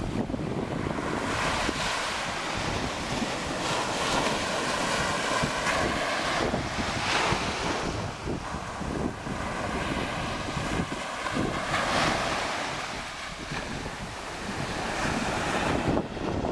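Small surf breaking and washing up over a sandy beach, swelling in a hiss every few seconds, with wind buffeting the microphone.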